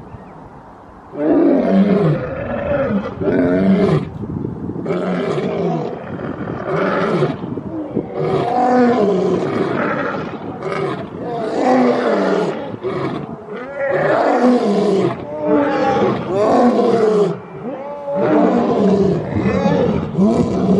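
Lion roaring over and over: a long series of deep calls, each a second or two long, with short breaks between them, starting about a second in.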